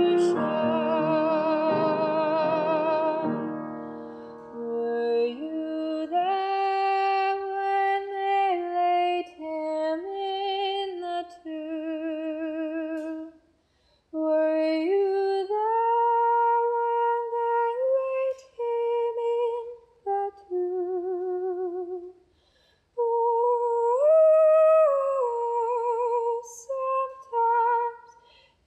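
A piano chord dies away over the first few seconds, then a woman's voice sings a slow, unaccompanied hymn-like melody with vibrato, in phrases separated by short pauses.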